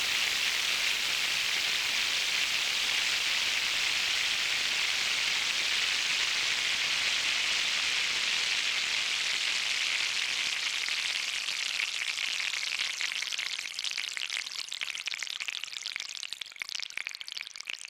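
Synthesized rain from a Eurorack modular synth: Mutable Instruments Plaits with noise from a Kinks module, its pattering brought out by a Magneto delay, making a dense hiss like a heavy downpour. From about twelve seconds in it thins into separate ticks and fades.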